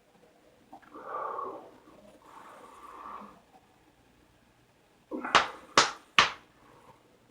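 Two rough throat sounds, one about a second in and one about two and a half seconds in, then three sharp slaps within about a second, louder than anything else.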